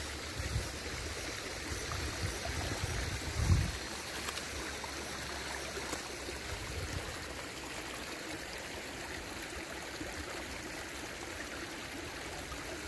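River water flowing in a steady rush. A few low bumps sound in the first four seconds, the loudest about three and a half seconds in.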